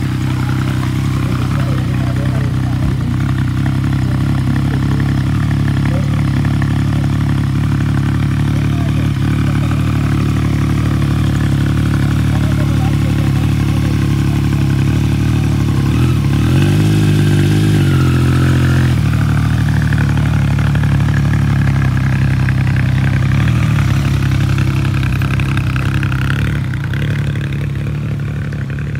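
Motorcycle engine idling steadily, revved once for a couple of seconds a little past the middle before settling back to idle.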